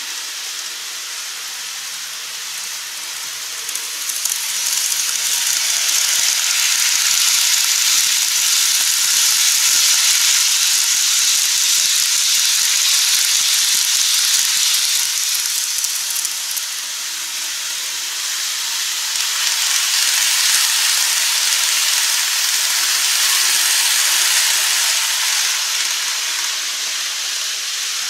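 Model trains running on the layout's track: a steady hiss of wheels rolling over the rails. It swells about four seconds in as the blue 24-series sleeper coaches hauled by an EF65 electric locomotive pass, eases off partway through, swells again, and fades near the end.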